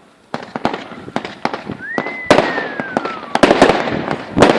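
Consumer New Year's fireworks going off: a string of sharp bangs and crackles, sparse at first and then dense and loud from about two seconds in, with a whistle that rises and then slowly falls in pitch over about a second and a half.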